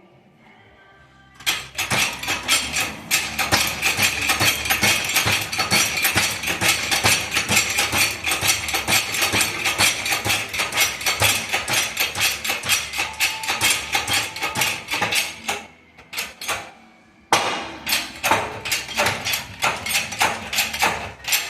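Rapid metal-on-metal hammer strikes, several a second, driving a pin out of a Chevrolet Cobalt gearbox. They run for about fourteen seconds, stop briefly, then resume for about four more seconds.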